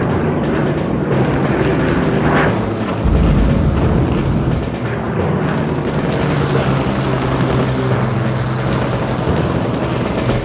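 Air-combat sounds: the steady drone of piston-engined aircraft with bursts of machine-gun fire, and a low boom about three seconds in.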